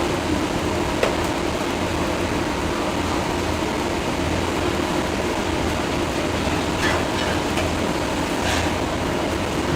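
Steady mechanical rumble and hiss with a low pulsing hum, with a single sharp click about a second in.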